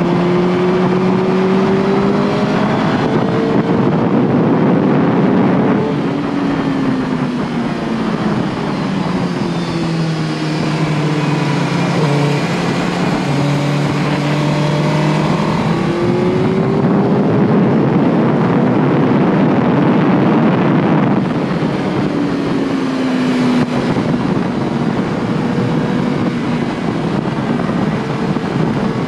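Sport motorcycle engine at full race pace, its pitch climbing under hard acceleration and dropping away on braking and downshifts several times, over a dense rush of noise.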